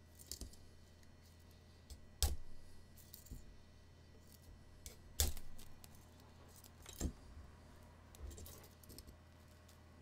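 Leatherman Signal multitool's ferrocerium rod scraped with the saw's spine to throw sparks: several sharp strikes, the two loudest about two and five seconds in, each trailing off in a short rasp, with lighter metallic clicks of the tool being handled in between.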